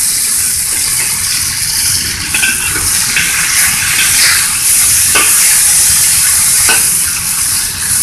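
Diced chicken breast sizzling in hot oil in a wok, with a metal spatula scraping against the wok a few times as the pieces are turned.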